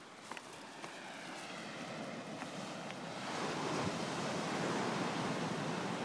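Ocean surf breaking and washing on the beach, a steady rush that grows louder about halfway through. A few faint clicks near the start.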